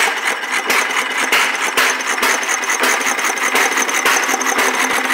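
Cushman 4 hp Model C single-cylinder binder engine running, a fast, uneven string of sharp firing strokes over a loud mechanical clatter.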